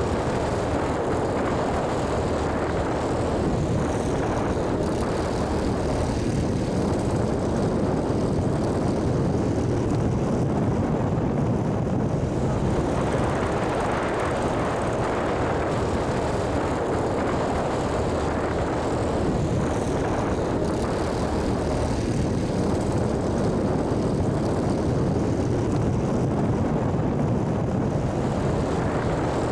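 RV-6's four-cylinder Lycoming IO-320 engine and propeller running steadily as the light airplane taxis.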